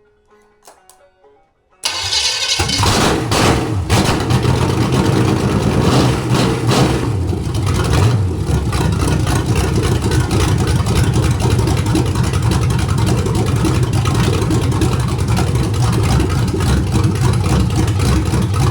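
1973 Chevrolet 350 small-block V8 with a big cam catching and starting about two seconds in, then running steadily at a fast cold idle set by the carburetor's cold idle screw.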